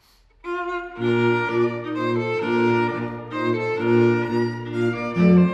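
Bassoon and string-trio quartet (violin, viola, cello) playing classical chamber music. After a silence, a higher line enters about half a second in, and the full ensemble with the cello's low notes joins about a second in.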